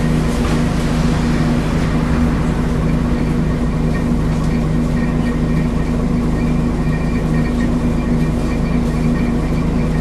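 Volvo Wright Renown bus running with a steady engine drone and the whir of its loud cooling fan. A thin high tone sounds on and off over it.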